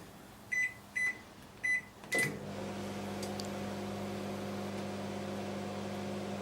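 LG IntelliWave microwave oven: three keypad beeps, then a click about two seconds in as it starts and runs with a steady hum. Everything works apart from the magnetron, so it is not heating.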